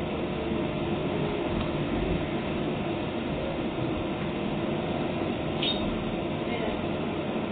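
Steady hum and rumble inside a Docklands Light Railway train running slowly alongside a station platform as it draws to a stop.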